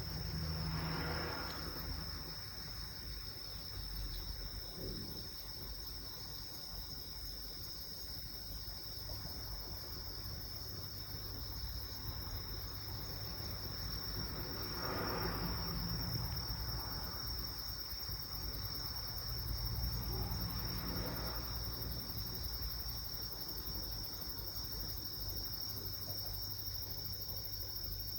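Crickets chirping in a steady, unbroken high trill. A soft rushing swell of noise rises and fades three times behind it.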